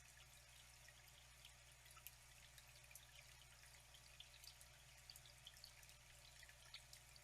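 Faint trickling, flowing water with many small irregular drips and splashes over a steady low hum.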